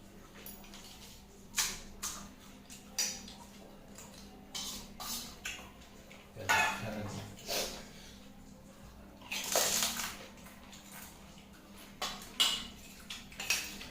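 Pani puri being eaten close to the microphone: crisp puris crunching and wet slurps of the spiced water, with clinks of dishes, in irregular bursts and the loudest a little under halfway and about two-thirds through.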